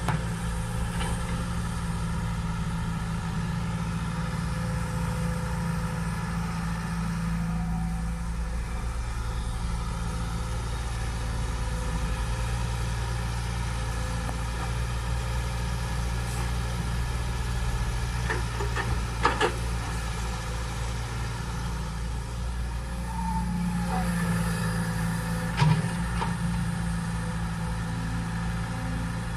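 Caterpillar hydraulic excavator's diesel engine running steadily as it digs and loads soil into a dump truck. A few sharp knocks come about two-thirds of the way through, and one more a few seconds later.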